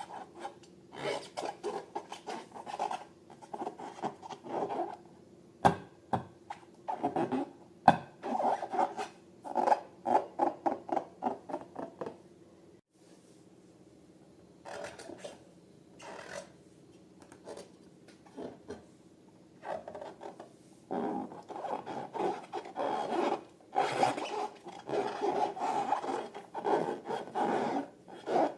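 Rubber balloons and slime being handled: runs of short rubbing and scraping strokes, several a second, with two sharp clicks about six and eight seconds in and a pause of a couple of seconds around the middle.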